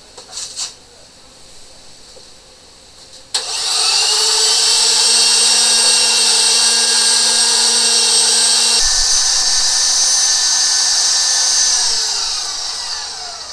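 Electric meat grinder switched on about three seconds in, running with a steady whine while grinding onion, celery, garlic and green bell pepper, then winding down near the end after it is switched off.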